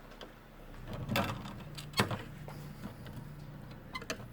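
Plastic tail light trim being pried off its clips: several sharp clicks and scrapes as the clips are worked loose, over a low steady hum.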